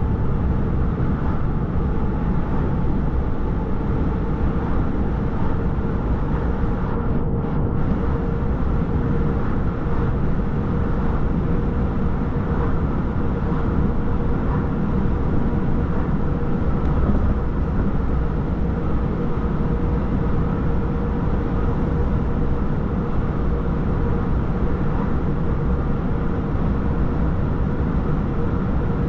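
Steady low rumble of a moving vehicle, heard from inside, with a faint constant hum above it.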